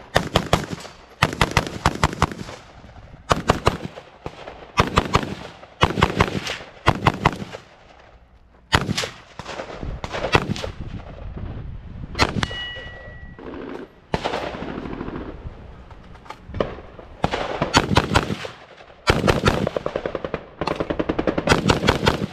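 Rapid gunfire from a firearm on a shooting range, fired in short bursts of several quick shots each, more than a dozen bursts with brief pauses between them.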